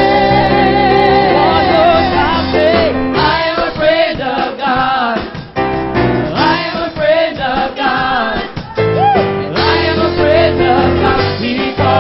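Gospel praise team singing with band accompaniment, the voices holding long notes with wavering, ornamented pitch. About three seconds in the accompaniment thins out under the voices, and the full band returns near the nine-second mark.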